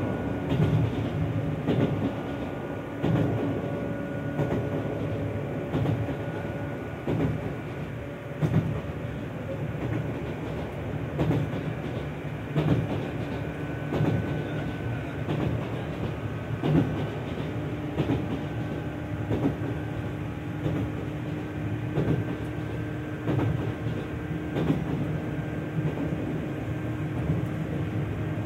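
Izukyu 2100 series electric train running, with the low-pitched hum of its Tōyō Denki TDK806-series traction motors (an MT54-like sound) and gear whine holding a near-steady pitch. Beneath it are low running rumble and wheels clacking over rail joints every second or so.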